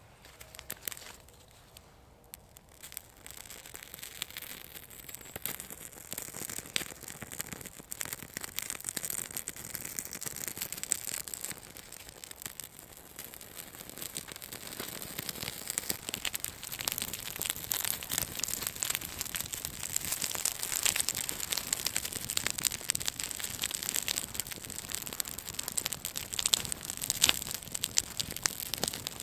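Dense dry crackling and crinkling made of many small sharp snaps. It starts faint and thickens over the first few seconds, then keeps going busily.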